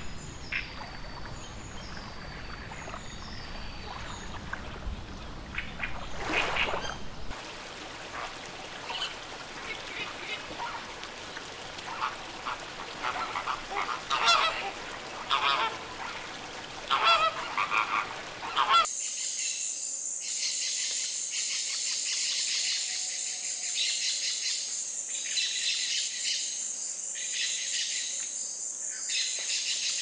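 Flamingo flock calling: many goose-like honks in quick, irregular bursts. Then, about two-thirds of the way in, a steady high-pitched buzzing chorus with a pulsing beat takes over.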